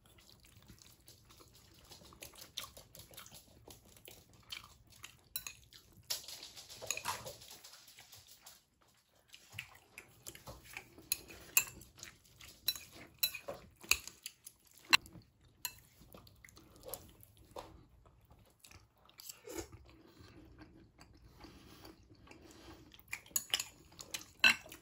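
Chopsticks clicking and scraping against bowls during a meal of spaghetti, with irregular sharp clicks of varying loudness and quieter chewing between them.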